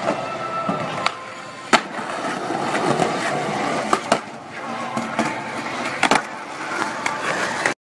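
Skateboard wheels rolling over concrete, broken by several sharp clacks of the board striking the ground, with two close together about six seconds in. The sound cuts off suddenly near the end.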